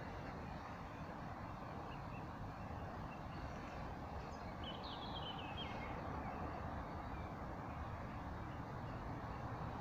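Steady outdoor background noise with a low rumble, and a short bird call of quick chirps about five seconds in.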